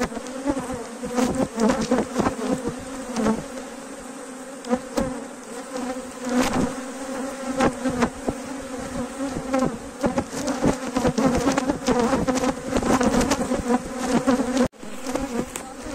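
A mass of honeybees buzzing in a steady hum pitched around 250 Hz, overlaid by frequent knocks and taps of handling. The sound drops out for an instant near the end.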